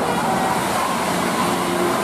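A bus passing on the road: steady engine and tyre noise, with faint steady tones running through it.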